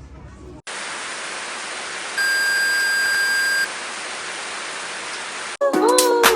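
Steady hiss of static noise that starts abruptly about half a second in, with a steady high beep held for about a second and a half in the middle. The static cuts off near the end and music with a beat begins.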